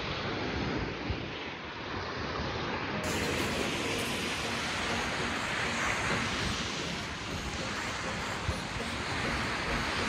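Sea waves washing steadily onto the beach, with wind buffeting the microphone.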